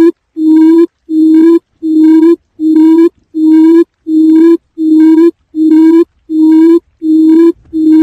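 Quail lure call: a steady series of identical low hooting notes, each about half a second long, coming about four every three seconds with short gaps between them.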